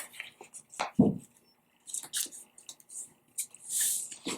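Paper strips being folded in half and creased by hand on a tabletop: scattered small rustles and taps, a louder thump about a second in, and a longer rustle of paper near the end.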